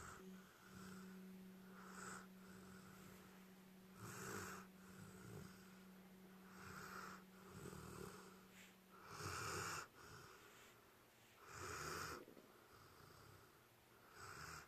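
Soft snoring, one snore about every two and a half seconds, each a breathy swell. A faint steady hum runs underneath and stops about nine seconds in.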